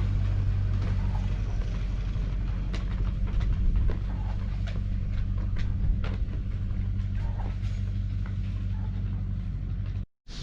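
An engine running steadily at a constant speed, a low hum with scattered rattles and clicks; it cuts off abruptly near the end.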